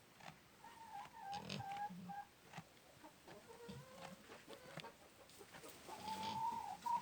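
Chickens making soft, drawn-out trilling calls: a few faint whistly notes, each up to a second long, the longest near the end, with light clicks and rustling.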